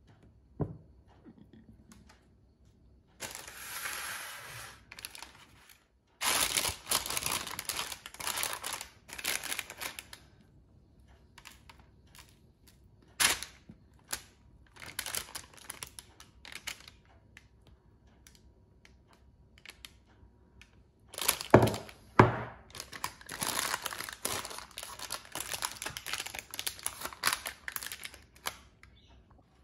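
Parchment baking paper crinkling and rustling in irregular bursts as cake batter is scraped into the lined tray and spread with a spatula. Two sharp knocks come about two-thirds of the way through.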